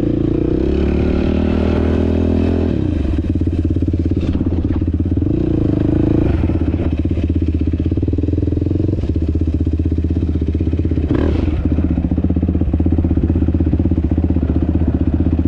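Sport ATV engine running as the quad is ridden over rough grass: the engine note drops as the throttle eases off about three seconds in, then it runs steadily at low throttle.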